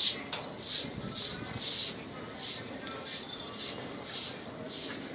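A broom sweeping a hard floor in quick strokes: a rhythmic swish, about two strokes a second.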